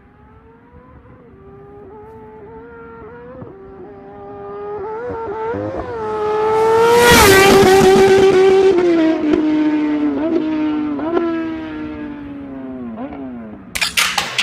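A superbike at high revs passes at speed: its engine note grows louder as it approaches, is loudest about seven seconds in, then drops in pitch and fades as it goes away. Near the end, sharp electronic music hits cut in.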